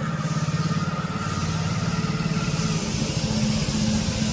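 Motorcycle engine running at low speed, a steady, rapidly pulsing drone, with a steady hiss over it.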